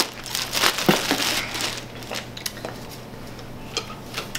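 Plastic packaging crinkling and rustling as a folded T-shirt is pulled out of it. The crinkling is densest in the first second or so, then thins to a few light rustles and ticks.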